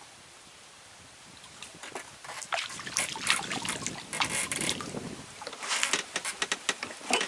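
Water sloshing and irregular knocks against a small wooden boat, faint at first and growing louder and busier from about two seconds in.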